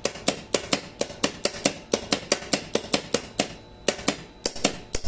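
Rapid clicking from the crane control circuit's contactors and push buttons as the south-travel control is operated, about four to five sharp clicks a second with a short pause a little past halfway.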